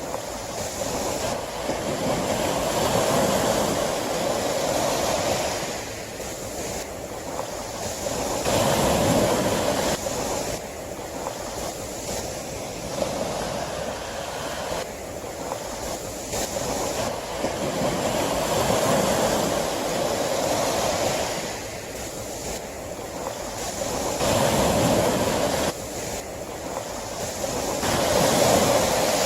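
Sea waves breaking and washing up the shore in an unbroken rushing noise, swelling and ebbing every five seconds or so.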